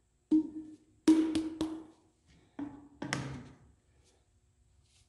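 Hollow PVC pipe knocking against the plywood work surface and other pipe pieces: about six hollow, ringing knocks in the first three and a half seconds.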